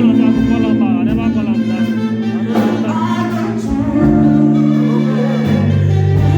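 A solo voice singing over a slow instrumental backing track of long held chords. The bass note changes about four seconds in and again near the end.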